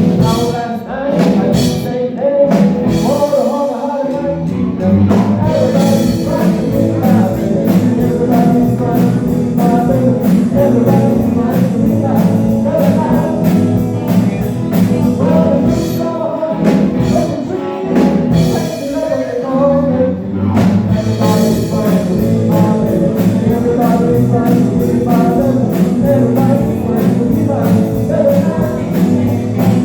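Live band playing a rock and roll song, with singing.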